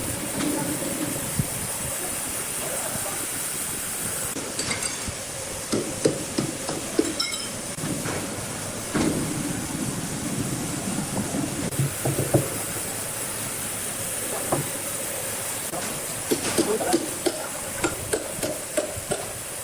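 Sawmill machinery running with a steady hiss, broken by irregular sharp knocks and clatter, more frequent near the end.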